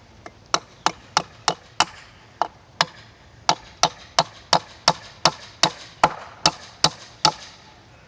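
Hammer blows on wood, about three sharp strikes a second with a short pause a couple of seconds in: nails being driven to fix a wooden duck box to its post.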